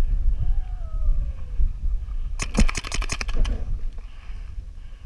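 Paintball marker firing a rapid string of about ten shots in roughly a second, about halfway through, over wind rumbling on the microphone.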